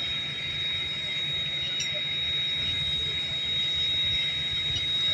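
Railroad car rolling along the track: a low rumble under one steady high-pitched squeal.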